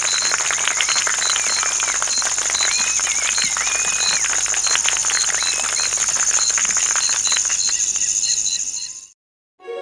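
Birds chirping and whistling over a steady high-pitched buzz and a dense crackle of ticks, like an outdoor animal chorus; it cuts off abruptly near the end.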